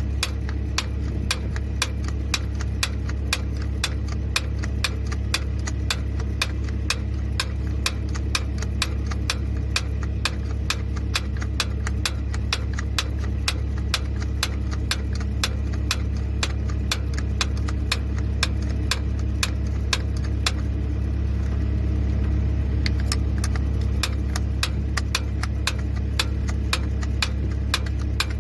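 Diesel engine idling steadily, with a fast, even ticking of about five clicks a second over its low hum.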